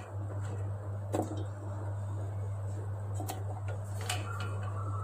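Small shallots dropped into a steel mixer-grinder jar, landing with several light knocks spaced irregularly a second or more apart, over a steady low hum.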